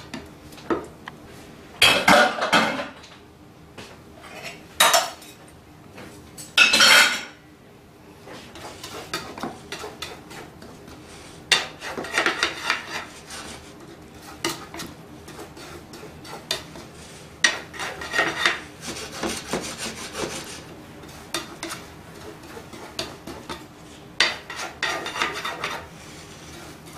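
Spatula scraping and tapping against a nonstick frying pan as the egg and potato mixture of a tortilla de patatas is spread and pressed into shape, in irregular bursts a few seconds apart over a faint steady hum.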